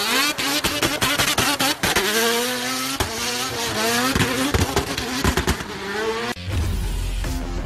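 Drift car engine revving hard, its pitch climbing again and again, with a fast run of sharp cracks in the first two seconds. About six seconds in it cuts abruptly to music with a heavy bass.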